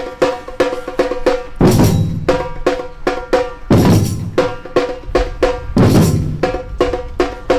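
Drum kit playing an even beat of ringing drum hits about four a second, broken three times, about two seconds apart, by a loud crash with bass drum.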